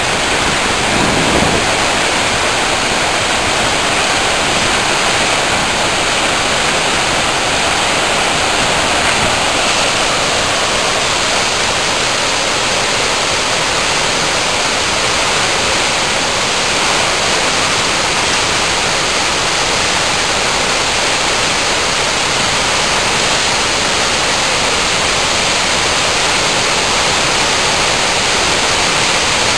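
Waterfall in flood: a heavy torrent of floodwater pouring over the falls and churning in the pool below, a loud, steady rush of water.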